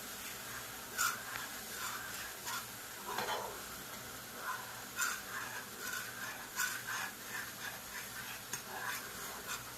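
A utensil stirring a pot of bubbling rum glaze, with irregular scrapes and clicks against the pot over a faint steady sizzle.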